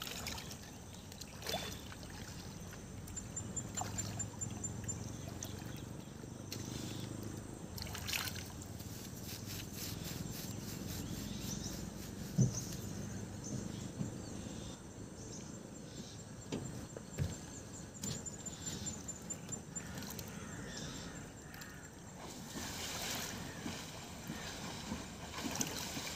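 Faint water sloshing and trickling in a creek as men wade and haul a net, with a few brief knocks.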